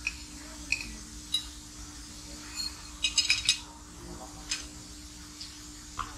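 Metal spoon and fork clinking and scraping on a ceramic plate while eating, in scattered single clinks with a quick run of several clinks about three seconds in.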